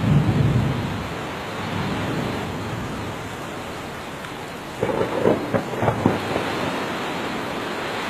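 Steady rain with thunder: a low rumble at the start, then a series of sharper cracks and rumbles about five seconds in.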